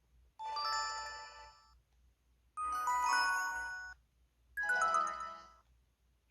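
Three short electronic chime jingles, the built-in sound effects of an LG-SV360 mobile phone. Each is a quick run of bell-like notes that fades out after about a second and a half, with short gaps between them.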